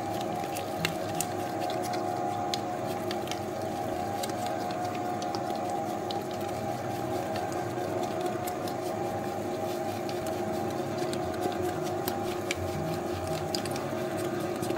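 Spiral dough mixer running, a steady motor hum with several tones, as its hook kneads a soft 70%-hydration dough. Scattered light clicks sound over the hum.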